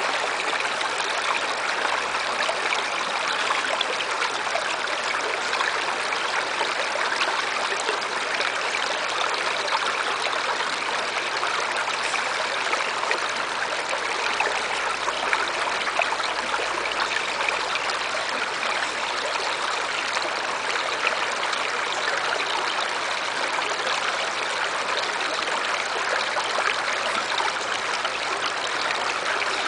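Stream water running over rocks, a steady, even rush of noise.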